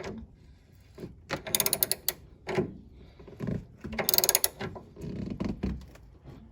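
A hand socket ratchet clicking in two short bursts, about a second and a half in and again about four seconds in, with softer knocks of tool on metal between. It is tightening the bolts of a rear sway bar bushing bracket, drawing the bracket up flush.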